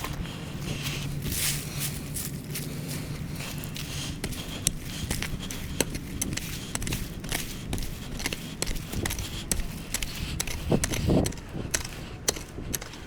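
Irregular crunches and sharp clicks of rocky soil and gravel being worked by hand, with a low steady hum in the first half.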